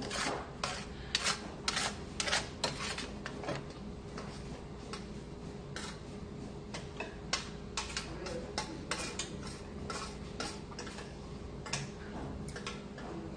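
Spoon clicking and scraping against a stainless steel pan as rice is scraped out, in quick irregular taps that come in runs, thickest in the first few seconds.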